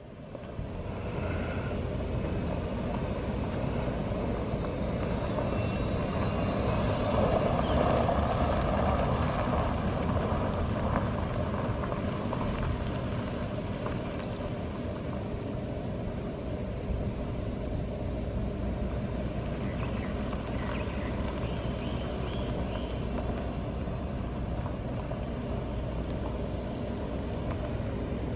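Ford 5.0 L V8 gas engine of a 2012 F-150 pickup running, louder for a few seconds around eight seconds in, then idling steadily.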